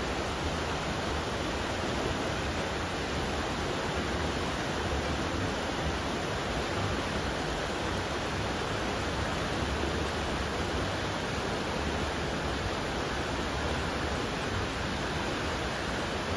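Whitewater of a river rushing steadily over rapids and a small cascade.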